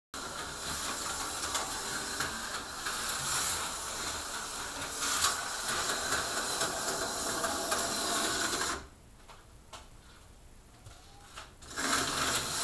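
HO-scale slot car running laps on plastic track: its small electric motor whirs and the pickup shoes and tyres chatter on the rails. About nine seconds in the sound drops away for roughly three seconds, then the car runs again.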